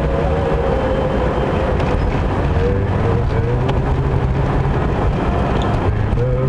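Car cabin noise while driving on a snowy freeway: steady engine drone and tyre and road noise.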